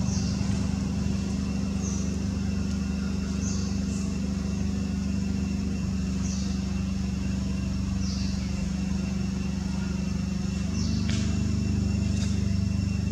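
A nearby engine running steadily with a low hum, its pitch and level stepping up slightly about eleven seconds in. Short high chirps come every second or two above it.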